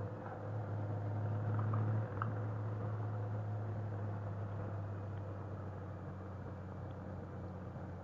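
Motorcycle riding at speed: a steady low engine drone with wind and road noise, swelling over the first two seconds, dipping sharply about two seconds in, then running on evenly and a little quieter.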